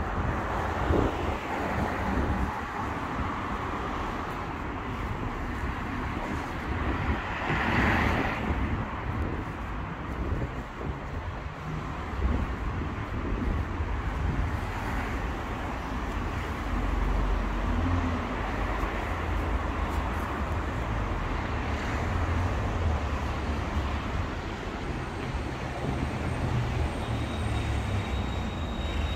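Road traffic going by: a steady rumble of cars, with one vehicle passing louder about eight seconds in.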